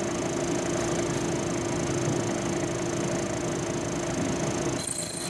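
Drill press running with a steady hum, its bit drilling a small oil hole through a chrome-plated steel shaft. The hum breaks off abruptly shortly before the end.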